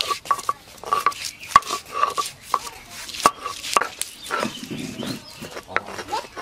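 A hand-held grinding stone knocking and scraping over garlic cloves on a flat grinding slab, crushing them toward paste. It makes a fast, irregular run of sharp knocks.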